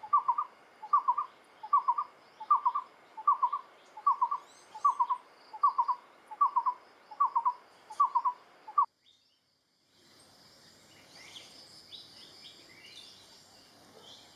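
Moustached barbet singing: a hollow, low note given in quick doubles and triples, repeated about every three-quarters of a second. It stops abruptly about nine seconds in. After a second of silence, fainter high-pitched chirps follow.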